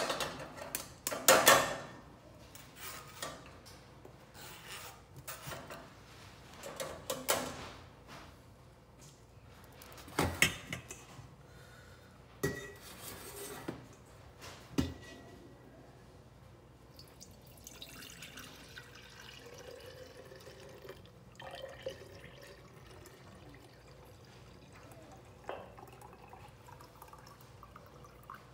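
Metal utensils clattering and clinking against stainless steel pots, a bowl and a glass jar while a thin herbal liquid is poured and drips into a jar and a bottle. The sharp knocks and clinks come mostly in the first half. The rest is quieter, with soft pouring and an occasional click.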